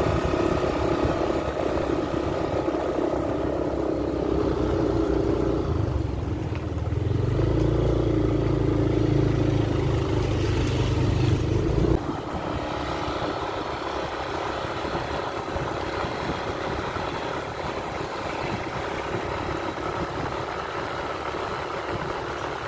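A motor vehicle engine running steadily, ending abruptly about twelve seconds in; after that a quieter, steady rushing noise remains.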